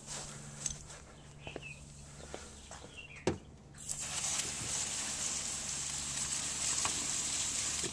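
A steady hiss of spray starting about four seconds in, directed at the center two fuel injectors of the Jeep Cherokee XJ engine to test whether heat soak is behind its hard starting. Before it, a few faint clicks and one sharp tap about three seconds in.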